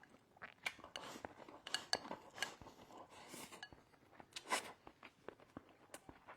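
Eating utensils clinking and scraping against a bowl while scooping up food, a series of light clicks with a few short ringing clinks.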